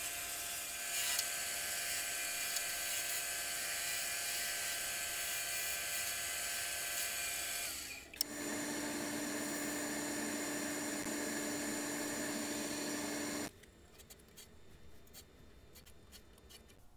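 Wood lathe running while a turning tool cuts a small wooden spindle, a steady whirring with scraping. The sound changes abruptly about 8 seconds in. A few seconds later the lathe falls quiet, leaving faint clicks of the work being handled.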